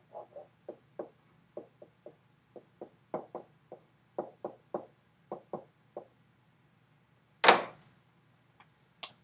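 A pen stylus tapping and scratching against a writing surface as numbers and letters are handwritten, in short taps about two to three a second. A single loud thump comes near the end, followed by one more click.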